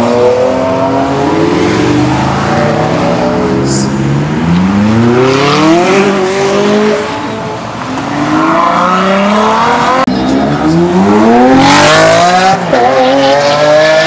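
Ferrari sports car engines revving hard as the cars accelerate away one after another, the pitch climbing in several sweeps through the gears and dropping at each shift, loudest near the end.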